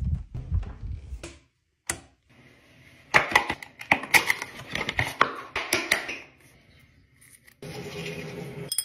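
Quick clicking and scraping of a small cardboard box being pulled open by hand, after a low rumble of the phone being carried, and near the end about a second of steady buzzing while teeth are brushed.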